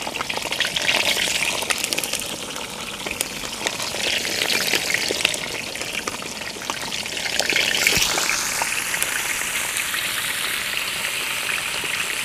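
Fried grey mullet sizzling in hot coconut oil on banana leaves in a wide pot: a steady frying hiss with many small crackles and pops. It swells a little about eight seconds in.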